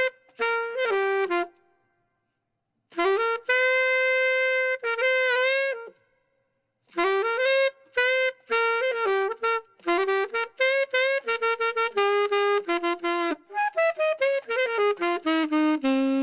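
Unaccompanied jazz solo on a single wind instrument: a few short phrases with pauses between them, then a long held note that bends at its end, then a quick run of notes that falls in pitch near the end.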